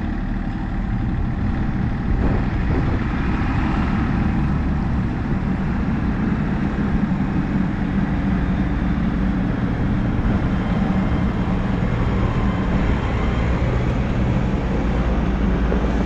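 Diesel engine of a compact earthmoving machine running steadily at working speed, a continuous low drone.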